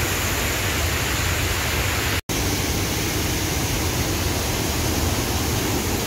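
Waterfall rushing steadily: an even hiss with a strong low rumble underneath. The sound drops out for an instant about two seconds in.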